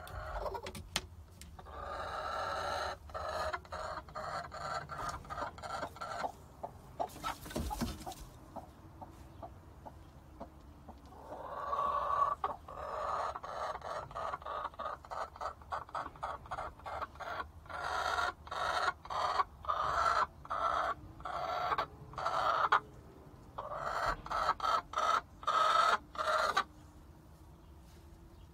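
A hen clucking and cackling in long runs of short, repeated calls, with a pause in between, louder toward the end. There is a brief burst of noise about eight seconds in.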